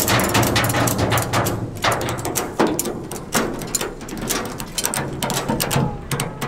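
Ratchet tie-down strap being cranked tight on a car's wheel, its pawl clicking rapidly again and again.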